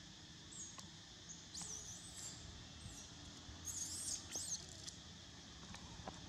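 Baby macaque squealing in high, wavering squeaks, three short bouts with the longest about four seconds in: distress calls of an infant whose mother is walking away.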